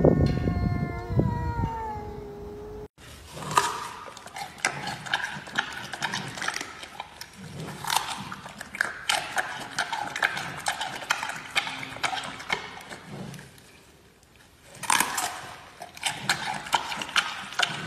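Two cats yowling at each other in long, wavering howls that stop about three seconds in. Then many short crinkles and crunches from a giant panda handling a paper bag, easing off briefly before the last few seconds.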